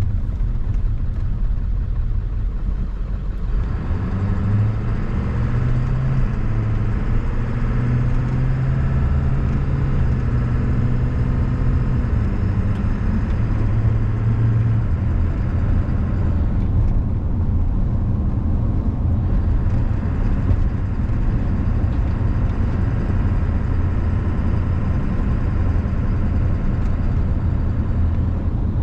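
1997 Ford F-350's 7.3-litre Power Stroke turbo diesel running under way, heard from inside the cab. About three seconds in the engine picks up as the truck accelerates. Past the middle it eases off for a couple of seconds, then pulls steadily again.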